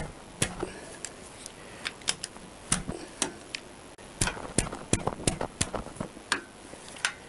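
Socket ratchet clicking in short, irregular strokes as rocker cover bolts are undone: a string of sharp ticks, several to a second at times, with pauses between.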